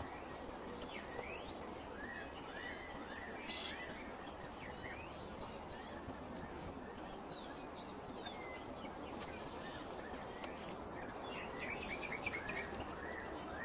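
Forest ambience: several birds calling in repeated short rising chirps over a steady high insect trill and a low hiss.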